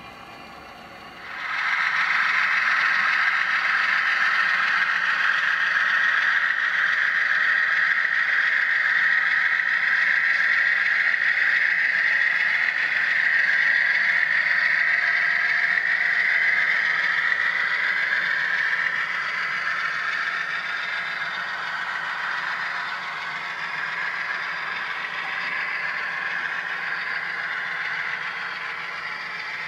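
HO-scale model freight train rolling past, its metal wheels rattling and hissing on the rails. The noise starts abruptly about a second and a half in and eases off somewhat in the second half.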